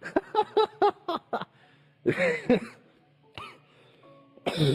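A person laughing in a quick run of short bursts over the first second and a half, followed by a few scattered breathy, cough-like vocal sounds, the loudest near the end.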